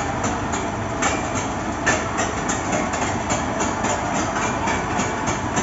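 Caterpillar kiddie roller coaster cars running along the steel track, the wheels clattering about three times a second over a steady running noise.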